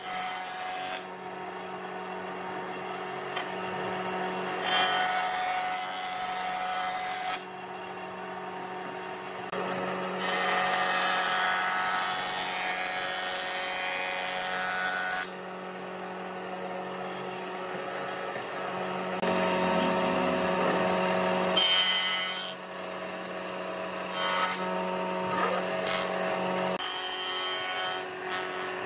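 Jointer running with a steady hum while its spinning cutterhead planes a rough wooden beam. The cut comes in several passes, each a louder rasping noise lasting a few seconds.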